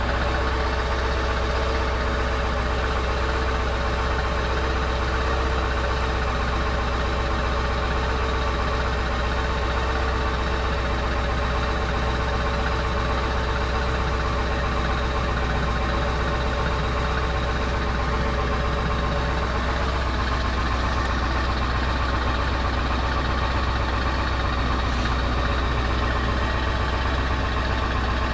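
Ford 7.3-litre Power Stroke V8 turbodiesel idling steadily while it warms up, well under a minute after a cold start in sub-freezing air.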